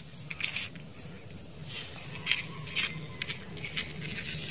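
A small plastic toy car being handled and set down on rough stone, giving a few light, scattered clicks and taps.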